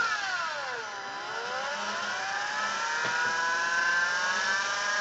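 Electric motors of a Blade mCP X micro collective-pitch RC helicopter whining; the pitch drops sharply within the first second, then climbs steadily back up over the next few seconds as the controls are moved. A faint tick about three seconds in.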